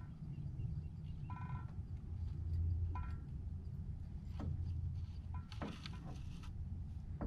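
Short bird calls, each well under half a second, come a few times over a steady low rumble. A brief rustling noise comes about six seconds in.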